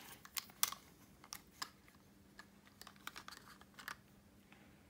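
Faint, scattered clicks and taps of hard plastic as a clear waterproof action-camera housing is handled, unlatched and opened and the camera is taken out of it.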